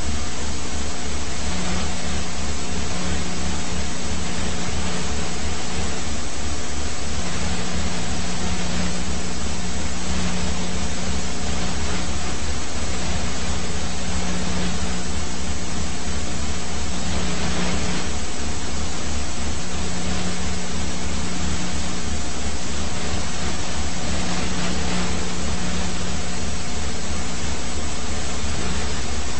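Police helicopter running: a loud, steady rushing noise with a fast low throb, and a hum that fades in and out every few seconds.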